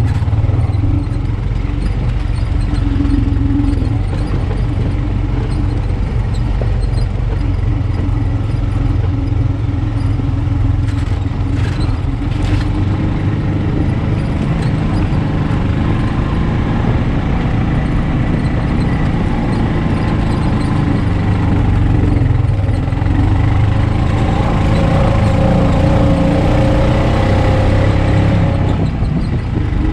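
2021 Honda Pioneer 520 side-by-side's single-cylinder engine running steadily as the machine drives along a rough track, with a few sharp clatters about eleven to twelve seconds in. The engine note rises for a few seconds near the end.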